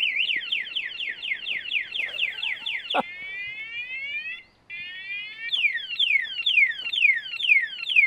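Cheap aftermarket motorcycle alarm siren going off, tripped by its gyro motion sensor. It cycles through its tones: fast falling sweeps, then rising chirps broken by a short pause, then slower falling sweeps.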